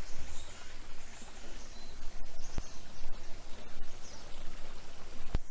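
Steady rush of a small garden stream, with faint bird chirps and insect calls over it. Two sharp clicks, one about halfway through and one near the end.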